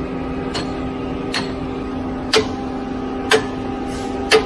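Hammer striking the steel pipe clamp on a concrete pump truck's outlet elbow to drive the clamp pin tight: five sharp metallic blows about a second apart, the last three loudest, over the steady drone of the pump truck running.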